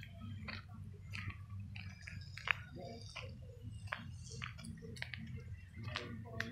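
Footsteps crunching on a gravel path, a sharp crunch every half second or so, over a steady low rumble.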